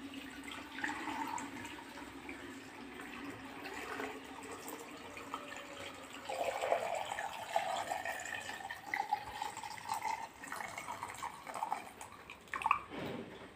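Cooled salt-and-vinegar brine poured in a thin stream from a steel pan into a glass jar of gooseberries and green chillies, trickling and splashing into the jar as it fills. The stream gets louder about six seconds in.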